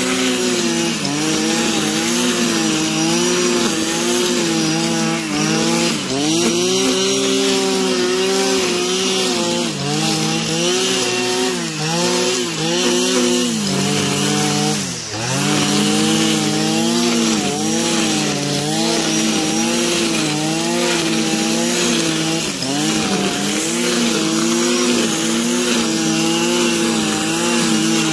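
Stihl petrol brush cutter running at high throttle while mowing tall grass, its engine pitch wavering and dipping briefly now and then, most deeply about halfway through.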